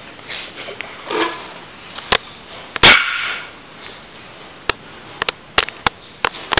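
Sharp clicks and knocks from a white Japanese spitz puppy playing on a hard tiled floor: scattered single knocks, the loudest about three seconds in with a brief scuffle after it, then a quicker run of clicks near the end.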